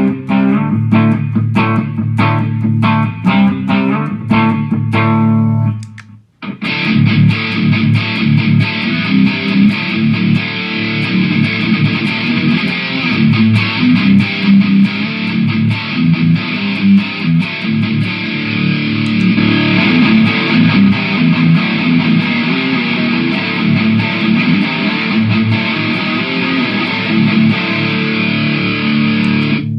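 Distorted electric guitar played through a Mooer GE150 multi-effects unit: evenly repeated picked notes, a brief break about six seconds in, then dense sustained distorted playing.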